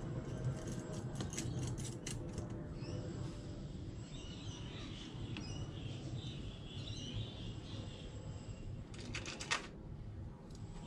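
Light clicks and taps of small metal throttle-linkage parts being handled and fitted, with a short quick run of sharper clicks near the end, over a steady low background hum.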